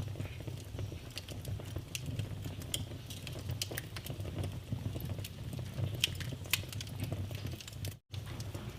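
Wood fire in a fireplace crackling, with frequent sharp pops and snaps over a steady low rumble of the flames. The sound cuts out for an instant near the end.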